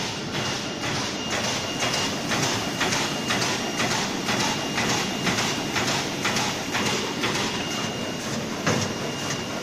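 Plastic bag-making machine running, cutting and sealing printed plastic film into bags with a regular clack about twice a second over a steady hum and a thin high whine. There is a louder knock near the end.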